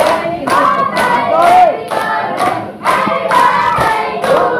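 A group of women, men and children singing a birthday song together, with hand clapping to the beat.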